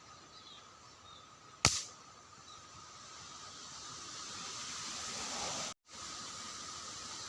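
A single sharp shot from an air rifle about one and a half seconds in, with a brief ring-off. Afterwards a steady hiss slowly grows louder, then drops out for a moment near the end.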